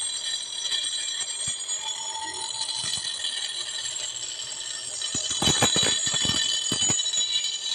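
Leaf-spring steel cleaver blank ground against a spinning grinding wheel: a steady, high-pitched metallic grinding whine. From about five seconds in it turns louder and rougher.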